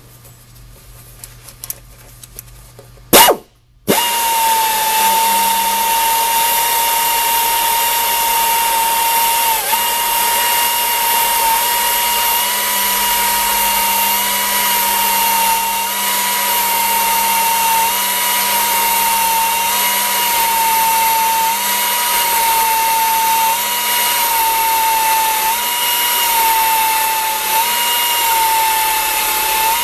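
A sharp knock, then about four seconds in a low-speed tire buffer with a texture wheel starts up and runs steadily with a whine, buffing a tire's inner liner to a velvet-like texture.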